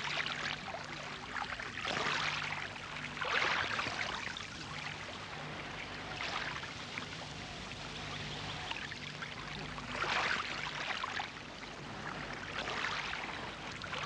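Small waves washing onto a sandy beach, a swell of surf every few seconds, over a faint steady low hum.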